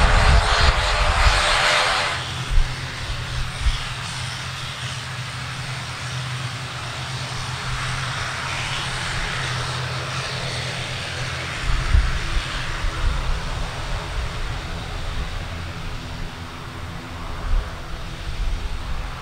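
ATR 72-500 turboprop's Pratt & Whitney PW127 engines and propellers running as the airliner taxis, a steady propeller drone. It is louder for about the first two seconds, then drops to a steadier, more distant drone with occasional low rumbles.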